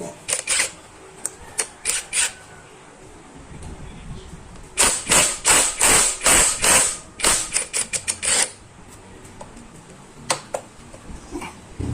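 Sharp metallic clicks and taps from hand tools working on a Yamaha FZ150 motorcycle engine during teardown: a few scattered clicks at first, then a quick run of them for about four seconds in the middle.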